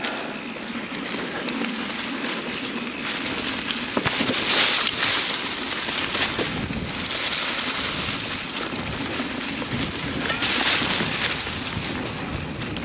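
Mountain bike riding noise: tyres rolling on a dirt trail and wind on the microphone. It is a steady rush that swells twice, about five seconds in and again near ten seconds, with a few faint knocks from the bike.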